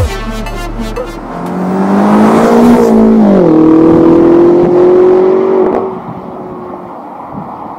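BMW X6 M Competition's 4.4-litre twin-turbo S63 V8 through a Supersprint valved exhaust, accelerating hard at full throttle. The pitch climbs, dips once about three seconds in, climbs again, then drops away and fades about six seconds in.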